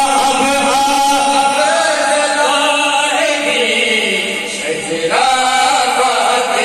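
Male voice chanting a qasida unaccompanied through a microphone, in long held melodic lines. The chant thins out briefly about four and a half seconds in, then resumes.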